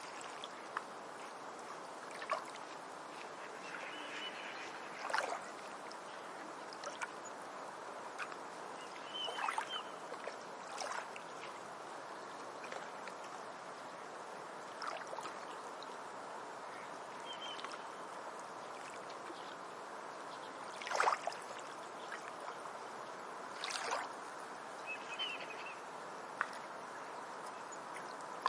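Beach ambience: a steady wash of water against the shore, with a few brief louder splashes and laps scattered through it.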